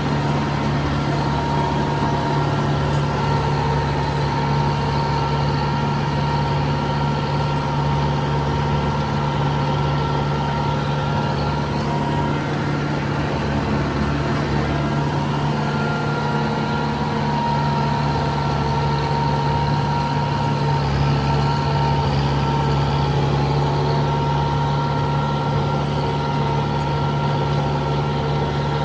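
Tractor engine running steadily, a constant low hum with a faint steady whine above it.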